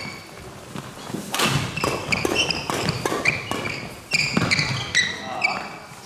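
Badminton doubles rally: sharp smacks of rackets hitting the shuttlecock, mixed with short, high squeaks of court shoes on the wooden gym floor as the players dart about. It goes quieter near the end as the rally stops.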